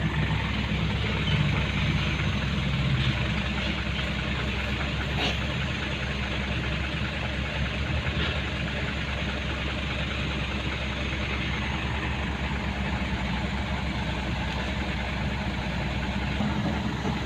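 Dump truck engine idling steadily, a low even hum with no revving.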